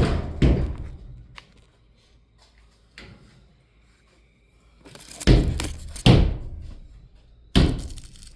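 Heavy thuds, like knocks or bangs on a door or wooden surface: two at the start, then a near-quiet stretch, then three more loud ones from about five seconds in.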